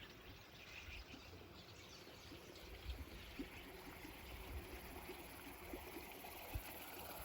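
A small creek flowing steadily, with a faint chirp of birds over the running water.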